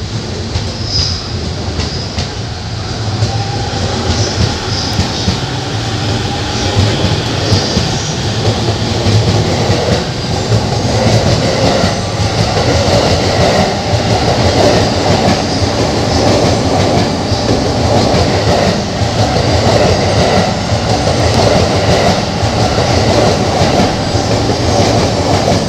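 E231-series electric commuter train pulling out and gathering speed, its wheel-on-rail noise building steadily. Wheels click over the rail joints, with brief high wheel squeals in the first several seconds.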